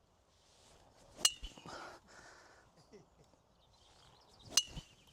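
Two crisp golf shots about three seconds apart, each a sharp club-on-ball strike with a short metallic ring.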